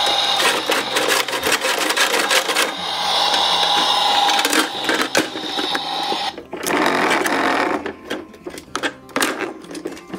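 Large plastic toy garbage truck's electronic sound module giving a steady tone, with its plastic parts clicking and rattling as it is handled. The tone stops about six seconds in, leaving short bursts of rattling and scraping.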